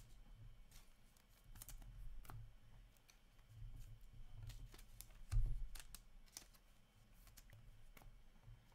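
Upper Deck hockey cards being handled and laid onto stacks on a table: scattered light clicks and rustles of card stock and plastic wrapping. A soft thump comes a little past halfway.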